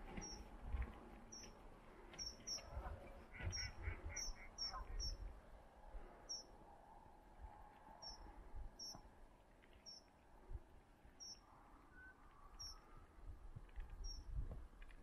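Small birds calling: a short high chirp repeats about once a second, with a quick run of about five lower calls around four seconds in. Scattered low thumps sit underneath.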